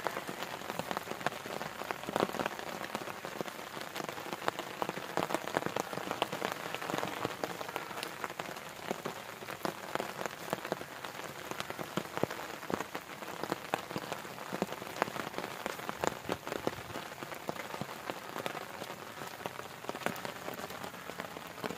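Steady rain falling, with many sharp drop taps scattered through it.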